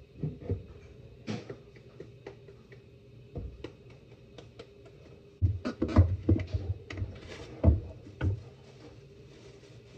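Scattered knocks, clicks and thumps of corn-tortilla making, as masa and the tortilla press are handled. A run of heavier thumps comes about halfway through, over a faint steady hum.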